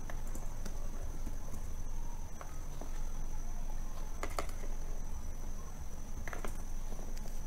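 A few computer keyboard key clicks over a steady high-pitched whine and a low background hum.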